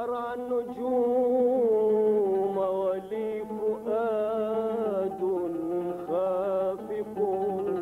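A man singing an Iraqi traditional vocal line to his oud: long held notes that waver and slide through ornaments, in long phrases with brief breaks.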